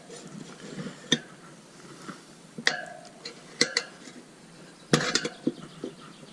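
Tyre levers clinking and knocking against a motorcycle wheel rim as a tyre is worked onto it: a handful of sharp metal clinks a second or so apart, the loudest about five seconds in.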